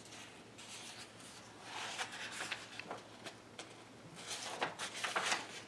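Paper pages of a paperback picture book being turned and handled, rustling and crinkling in two short spells, about two seconds in and again near the end.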